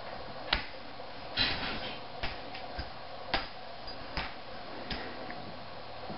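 A ferret playing on a tile floor around a plastic play tunnel: irregular sharp clicks and taps, about seven over six seconds, one with a short scrape after it about a second and a half in.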